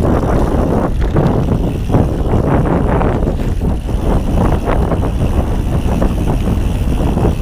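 Ghost Riot mountain bike riding fast down a dirt forest trail: a steady rush of wind on the microphone and tyres on dirt, with frequent short knocks and rattles from the bike over bumps.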